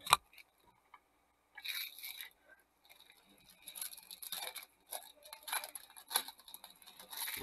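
A trading-card pack's foil wrapper crinkling and tearing as it is opened by hand, in repeated bursts of rustling. A sharp click right at the start is the loudest moment.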